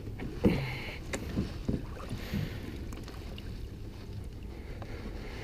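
A few light knocks and clicks of a fish and gear being handled aboard a fishing kayak, over a soft steady background hiss of wind and water.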